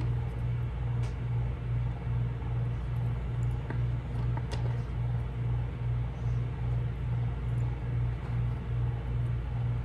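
A steady low mechanical hum that pulses evenly about twice a second, typical of a motor-driven appliance running, with a few faint light clicks.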